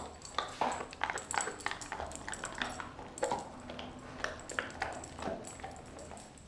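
A Doberman chewing raw meat and bone, with irregular crunches and clicks of teeth on bone, several a second.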